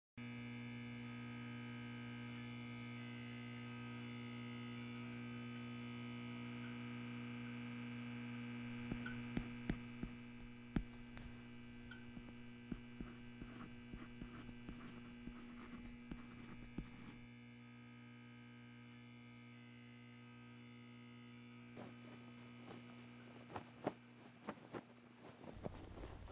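A steady electrical hum with several held tones, starting abruptly. Scattered clicks come in from about nine seconds, with a run of light, evenly spaced ticks a little later. The hum thins out around seventeen seconds.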